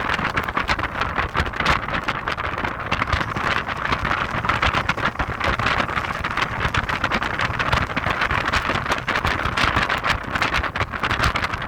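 Heavy wind noise buffeting the microphone of an Audi TT 225 quattro roadster on the move, crackling unevenly over the car's steady low running noise.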